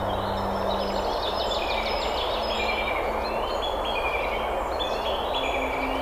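Forest stream rushing steadily over rocks, with a songbird singing repeated phrases of short notes that step up and down in pitch. A low steady hum fades out about a second in.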